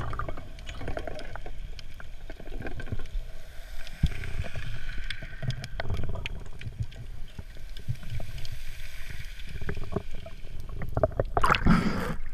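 Underwater sound picked up through a GoPro's waterproof housing: a steady low rumble of water with scattered clicks and knocks. About eleven and a half seconds in comes a louder rush of splashing water as the camera breaks the surface.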